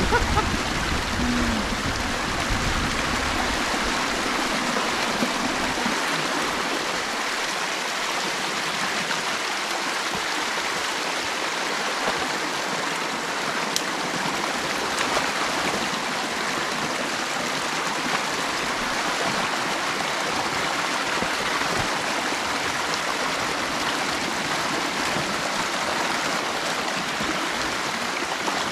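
Creek water rushing and flowing steadily.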